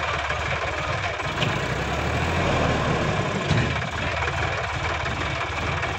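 Sonalika DI-50 RX tractor's diesel engine running steadily, getting louder and heavier for a stretch from about two to three and a half seconds in.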